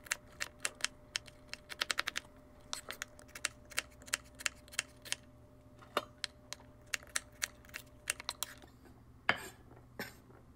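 Chef's knife dicing a fennel bulb on a wooden cutting board: quick, uneven taps of the blade striking the board, several a second. After about eight seconds the taps thin out into a few louder knocks.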